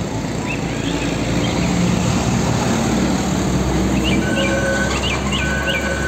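Road traffic with a car-carrier truck driving by: a steady engine and road rumble, with birds chirping over it several times.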